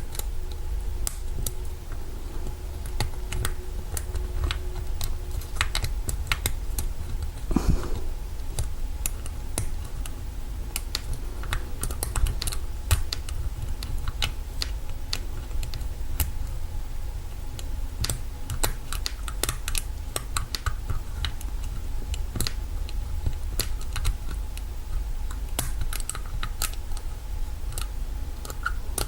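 Lock-picking tools working in the keyway of an old, corroded Kwikset doorknob lock: a steady run of small, irregular metal clicks and ticks as the pick works the pin stack.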